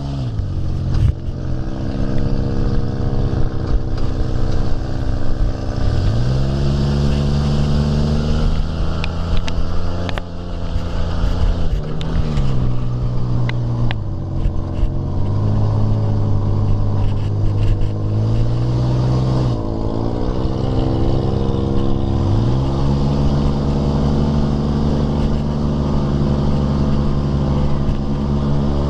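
Dune buggy engine running steadily under way, its revs falling and climbing again several times. A few sharp knocks and rattles come about ten seconds in.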